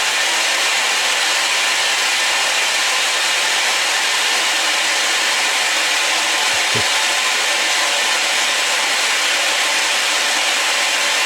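Vacuum cleaner running steadily with a continuous whooshing hiss as it is used to groom a cat.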